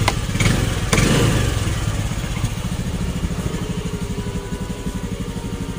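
Honda Dio scooter's single-cylinder engine running. It is revved briefly by a twist of the throttle about half a second in, then settles back to a steady idle.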